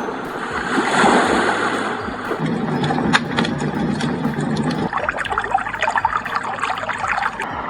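A white noise machine's speaker playing a recorded running-water sound, a steady trickling noise. About five seconds in it shifts to a dense patter of short crackles.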